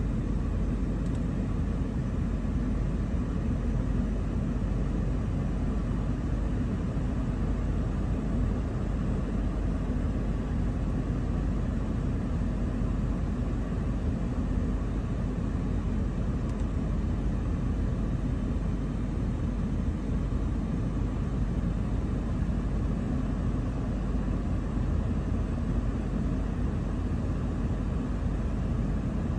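A steady low rumbling noise that holds at one level throughout, with no distinct calls or knocks standing out.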